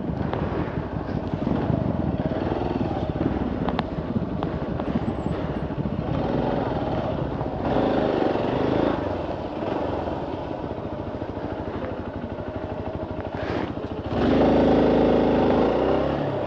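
Single-cylinder engine of a Hero XPulse 200 4V motorcycle running as it is ridden, with the engine note rising about halfway through and again, loudest, near the end.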